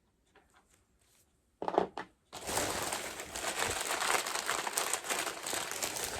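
A mystery pin's foil blind bag crinkling steadily as it is handled and opened, starting about two seconds in.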